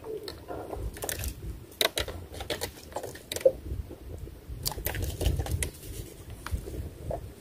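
Irregular small clicks and knocks, the kind made when a fishing pole and gloves are handled close to the microphone, over a low rumble of wind on the microphone.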